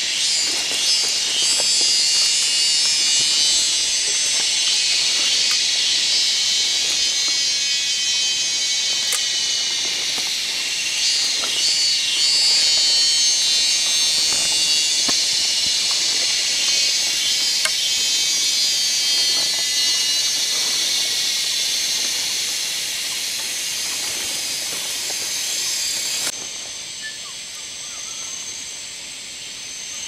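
Dense, steady chorus of jungle insects, a high shimmering buzz from many callers at once. Near the end it drops off suddenly to a thinner, higher buzz.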